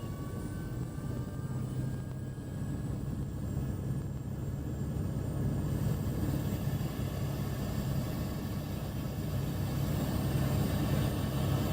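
Helicopter engine and rotor running as a steady low drone. It grows gradually louder, with a rising hiss from about halfway through.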